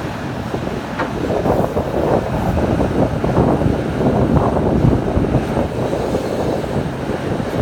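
Liebherr R 974 crawler excavator digging: its diesel engine runs under load while the bucket teeth tear through soil and stones. A single sharp knock about a second in, then gritty crackling, loudest in the middle.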